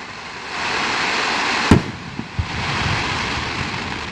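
Aerial fireworks display: one sharp bang of a shell bursting about a second and a half in, between stretches of hiss from the burning shells.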